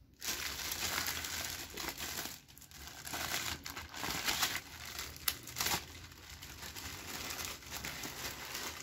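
Clear plastic bags crinkling and rustling in the hands as a sealed manual is handled and a zip-lock bag is worked open, irregular, with a few sharper crackles.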